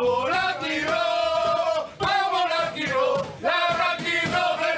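A group of men, football fans, singing a chant together in long held phrases, breaking off briefly about two seconds in and again near three and a half seconds.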